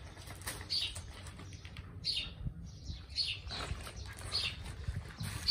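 Slow footsteps crunching on gravel, about one step a second.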